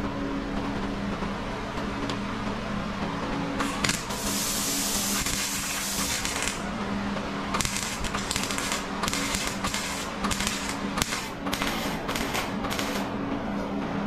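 MIG welding a car's steel rocker panel: one continuous weld of about two and a half seconds starting about four seconds in, then a quick run of short stitch welds. A steady low hum runs underneath.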